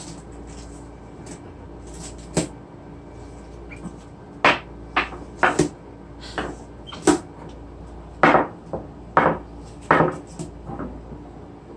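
Tools being handled and knocked about by capuchin monkeys: an irregular series of about a dozen sharp clacks and knocks, most of them after the first few seconds.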